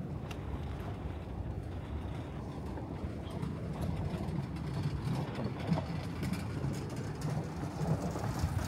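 City street ambience: a steady low rumble with faint scattered clicks and murmurs above it.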